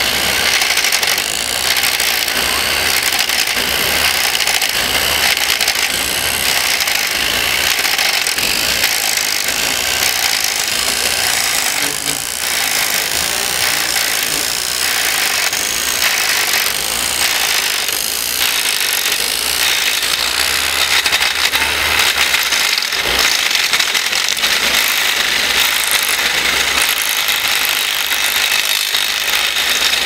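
Working RC model wood chipper running steadily, a continuous mechanical whir with rattling as branches are chipped.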